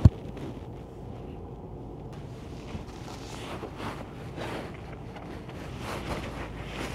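Steady low rumble inside a car cabin in slow traffic, with one sharp knock right at the start and soft fabric rustling partway through as a travel neck pillow is pulled on.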